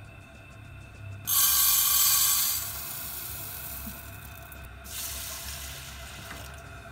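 Dry rice grains poured from a plastic measuring cup into a rice cooker's inner pot: a loud rushing patter starts suddenly about a second in, then thins out. About five seconds in a kitchen tap starts running into the pot to wash the rice.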